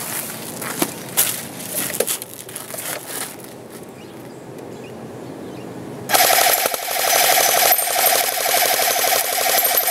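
A few scattered clicks and knocks, then about six seconds in an A&K M249 SAW Mk II electric airsoft gun opens up on full auto: a loud, rapid, continuous burst of gearbox cycling and shots that keeps going.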